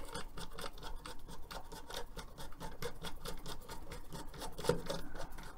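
A screw being turned back in with a screwdriver: a rapid run of small scraping clicks, with one louder knock near the end.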